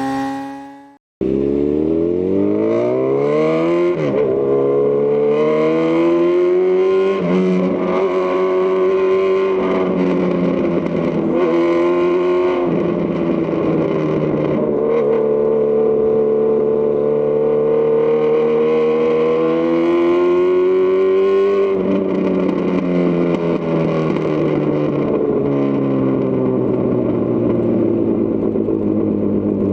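2018 Honda CB1000R's inline-four engine through a Lextek CP1 full exhaust, pulling away hard with rising revs and shifting up about four seconds in. It then runs at fairly steady revs with a few more shifts, and the revs fall away as it slows in the last few seconds.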